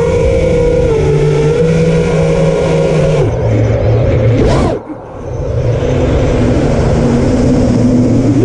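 FPV quadcopter's brushless motors whining, recorded from the GoPro on the drone, the pitch shifting with the throttle. About four and a half seconds in the whine rises sharply, then the throttle is cut and the sound drops away for a moment before building back up.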